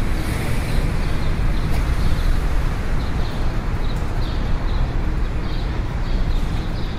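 Outdoor ambience: a steady low rumble, like distant traffic and wind, with short high chirps recurring about twice a second.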